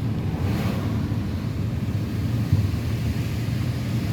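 Steady low rumble of a car driving, heard from inside the cabin: tyre and road noise with the engine underneath, unchanging throughout.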